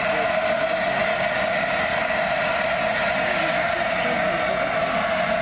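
Steam locomotive standing and letting off steam in a loud, steady hiss that does not change, with no exhaust beats.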